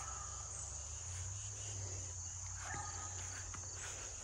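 Crickets chirring in a steady high-pitched drone.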